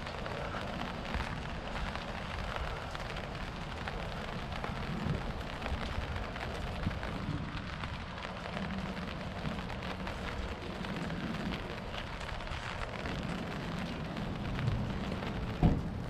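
Steady rain falling on wet pavement: a constant hiss dotted with small drop ticks, over a low rumble. One brief, louder thump near the end.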